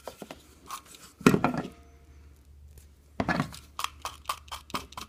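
Handling of a coax stripper and RG6 quad shield cable: scattered light clicks and taps, with two louder knocks about a second in and about three seconds in, as the inner layer of braid is worked back.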